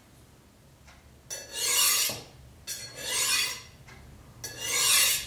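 A large kitchen knife drawn slowly down a butcher's sharpening steel: three long strokes of steel sliding on steel, each about a second, that hone the blade's edge.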